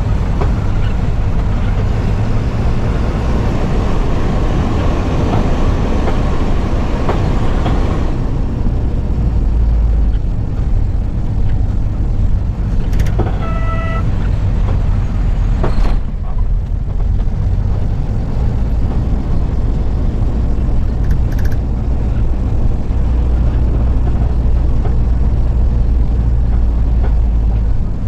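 Vehicle engine and tyre noise heard from inside the cab, heavier for the first eight seconds or so. A short horn toot comes about fourteen seconds in.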